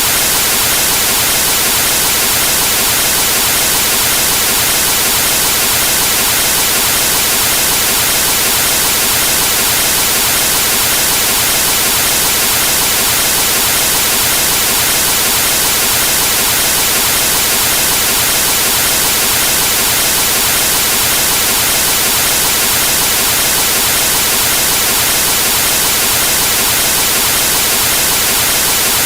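Television static with no signal: a loud, steady hiss of white noise, brightest in the high end, that never changes.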